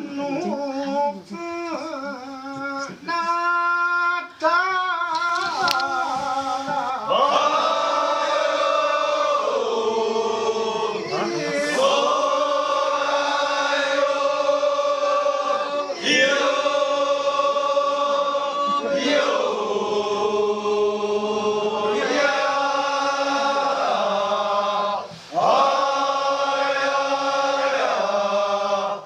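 Kiyari, a Japanese festival work song, sung without instruments. A lone voice sings a wavering, ornamented line for the first several seconds, then a group of voices answers in long, drawn-out notes held together, breaking off briefly a few times.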